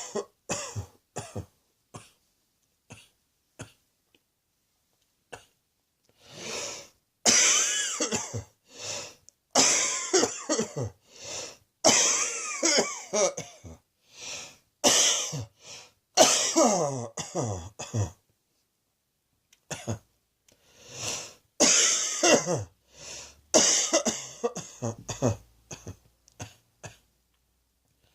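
A person coughing in fits: a few short, scattered coughs at first, then long runs of hard coughs from about six seconds in, broken by a pause of a couple of seconds about two thirds of the way through.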